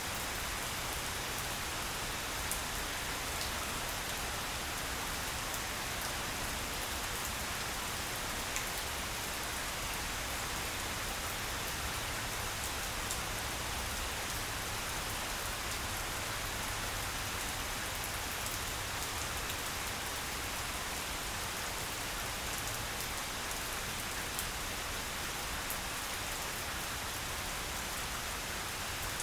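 Steady rain falling on grass, with a few close drops ticking sharply now and then.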